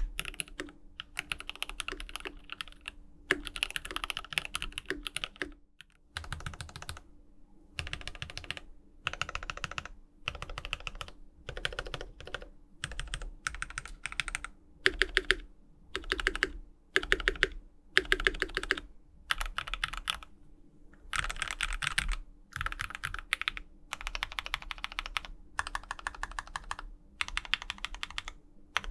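Typing on a GMMK Pro aluminium-case mechanical keyboard with lubed JWK EV-02 switches and GMK keycaps: quick runs of key clacks in bursts of a second or two, with short pauses between them.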